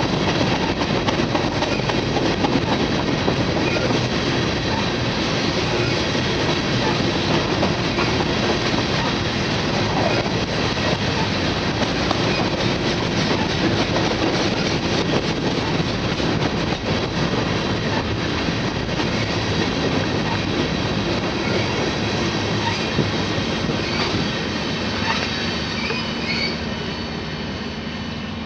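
Freight train of covered hopper cars rolling past, its steel wheels rumbling and clattering steadily over the rail joints. Near the end a few faint high wheel squeals come through, and the sound eases off as the cars move away.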